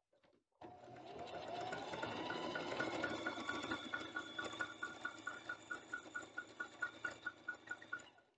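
Singer Heavy Duty electric sewing machine stitching net material. The motor comes up to speed with a rising whine about half a second in, then runs steadily with a regular ticking about three times a second, and stops just before the end.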